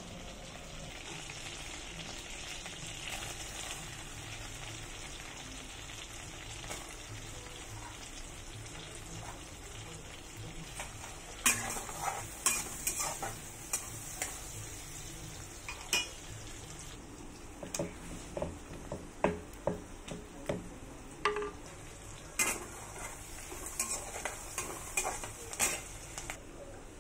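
Chopped onions sizzling in hot oil in a kadhai, stirred with a metal spatula. From about the middle on, the spatula repeatedly clinks and scrapes against the pan over the steady sizzle.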